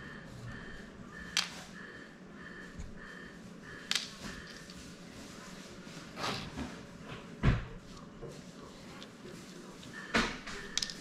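Scattered clicks and taps of small drone parts and hand tools being handled on a cutting mat, the loudest a thump about seven and a half seconds in. A faint high tone pulses about twice a second over the first few seconds and again near the end.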